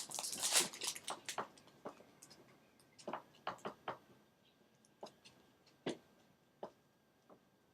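A tarot deck and its cardboard box being handled: a quick flurry of rustling and tapping in the first second or so, then scattered single light clicks and taps of card and cardboard.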